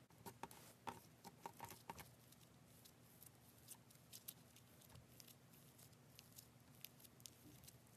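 Faint sticky clicks and small pops of slime being pressed and kneaded between fingers, a quick cluster in the first two seconds, then scattered ones.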